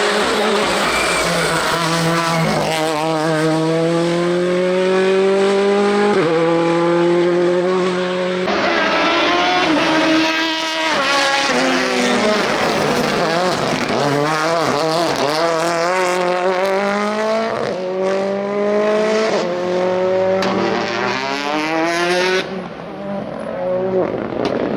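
Ford Fiesta R5 rally car's turbocharged four-cylinder engine at full throttle, the revs climbing and then dropping sharply again and again as it shifts through the gears and lifts for corners.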